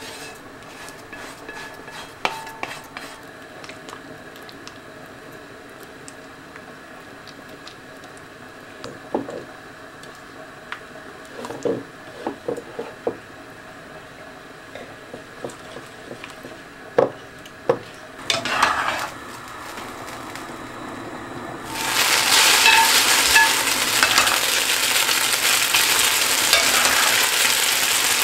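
A small spoon clinking and scraping against a ceramic plate as an egg-yolk mixture is stirred. About two-thirds of the way in, a loud, steady sizzle starts suddenly from a hot skillet holding freshly drained spaghetti.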